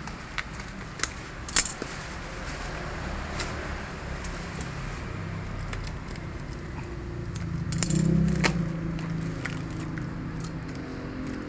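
A parcel being handled and opened by hand: packaging crackling and rustling, with scattered sharp clicks in the first two seconds and a louder stretch of handling about eight seconds in.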